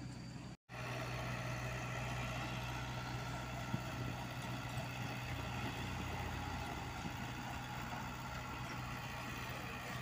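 Light diesel dump truck's engine running steadily as the truck creeps along, with a brief dropout about half a second in.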